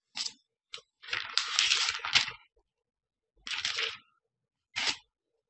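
Thin Bible pages being turned: papery rustles in about five separate bursts, the longest lasting over a second.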